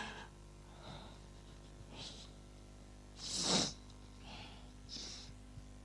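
A man weeping into a handheld microphone: several short, noisy sobbing breaths about a second apart, the loudest about three and a half seconds in, over a faint low hum.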